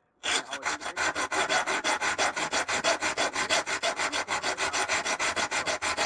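A small tempered-steel tool being sanded by hand with quick, even back-and-forth strokes, several a second, giving a steady rasping scrape. It starts about a quarter of a second in.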